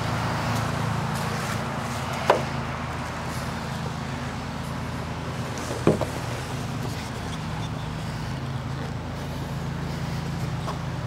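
A steady low mechanical hum from a running motor, with two short sharp knocks about two and six seconds in.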